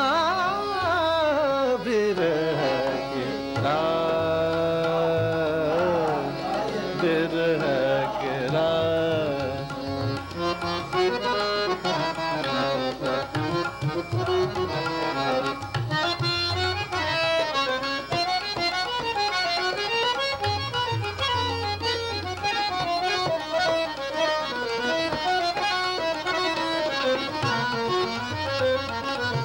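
Hindustani classical vocal with tabla and harmonium. A male voice glides down and holds long notes with a slight waver, then fast melodic runs take over from about ten seconds in, over a steady tabla rhythm.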